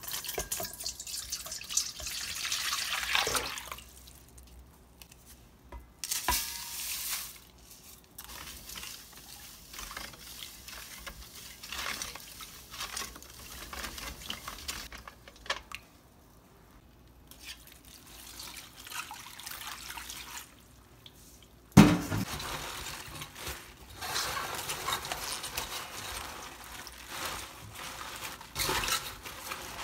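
Water poured from a measuring jug into a stainless steel mixing bowl, twice, then salt brine stirred in the bowl with a utensil. About 22 seconds in, a sharp thump, followed by napa cabbage leaves rustling and splashing as they are tossed in the brine.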